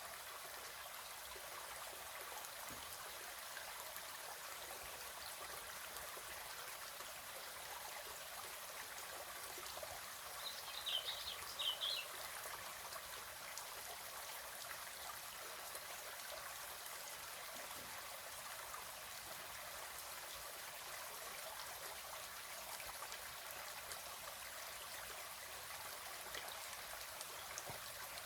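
River water flowing steadily, a constant rushing trickle. About eleven seconds in, a brief cluster of short high chirps rises above it.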